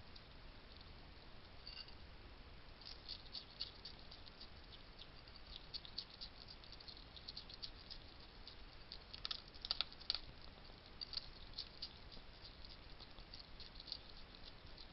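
Wild hedgehogs crunching dry food, a rapid, irregular run of faint, crisp clicks, with a louder cluster about ten seconds in.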